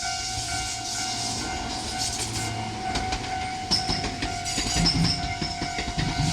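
Japanese level-crossing warning bell ringing in a steady repeating electronic tone, while a Tobu 8000 series electric train runs in over the crossing: its wheels clatter over the rail joints from about three seconds in, with a few brief high squeals.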